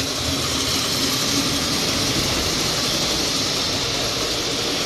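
O gauge model train running on the layout track: a steady, unbroken whir and rumble of motor and wheels.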